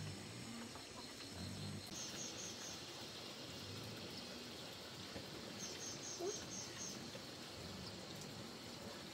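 Quiet outdoor ambience: a steady hiss broken by quick runs of short, high chirps, four about two seconds in and six more around the sixth second.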